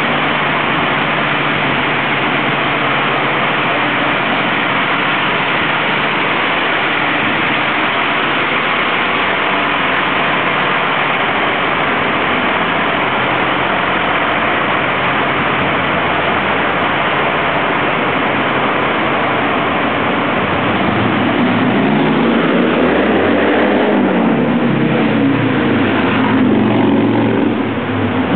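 City street traffic: steady road noise with vehicle engines running. From about three-quarters of the way through, a heavier engine comes in louder, its pitch rising and falling, then drops away just before the end.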